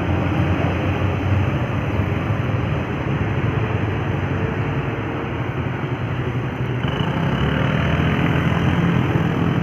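Roadside traffic on an uphill road: a steady rumble of heavy vehicle engines and tyres passing, with a deeper, louder engine note coming in about seven seconds in.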